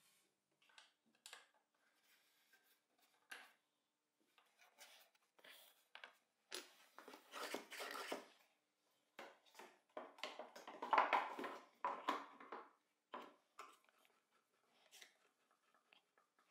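Plywood parts of a homemade thickness sander being handled and fitted: scattered light knocks and wood sliding against wood, with two longer scraping stretches in the middle.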